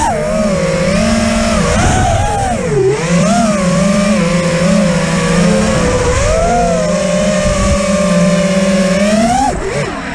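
Motors and propellers of a 5-inch FPV quadcopter (XING E-Pro 1800kv motors, HQ 5037 props, 6S) whining in flight, the pitch sweeping up and down continually with the throttle. Near the end the pitch drops sharply and then climbs again.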